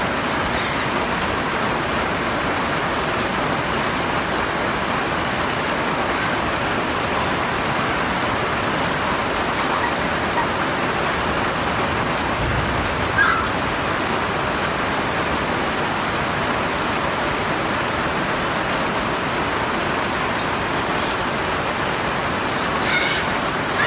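Steady rain falling on a roof overhead and a wet concrete deck: a dense, even hiss. One brief bump comes about halfway through.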